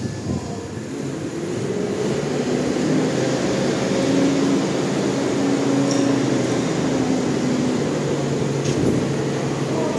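Semi-trailer truck's diesel engine running as the truck drives slowly past, getting louder about two seconds in and then holding steady.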